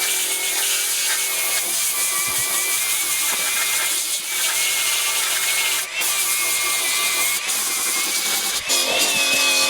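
Power grinder grinding down freshly laid steel weld beads on an anvil's edges: a steady, loud grinding whine whose pitch wavers as the disc bites, with a few momentary dips.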